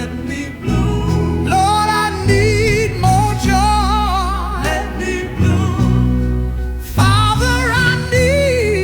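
Gospel music: a singing voice with wide vibrato holding long notes over sustained bass and chords.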